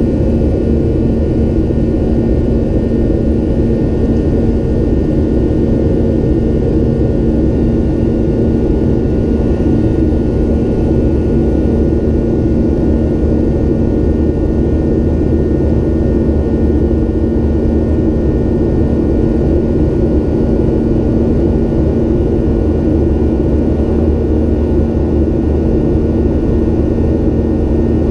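Steady in-flight cabin noise of a Boeing 737-800 heard from a window seat: the even drone of its CFM56-7B turbofan engines mixed with rushing air, with a few steady hums running through it.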